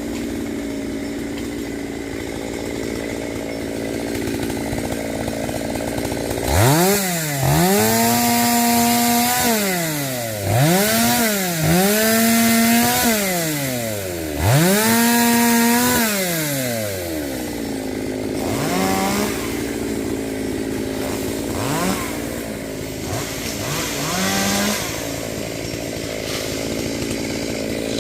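Chainsaw engine running at high speed, then revved up and let fall back toward idle four times in a row. After that it runs at a lower speed, with a few short blips of the throttle.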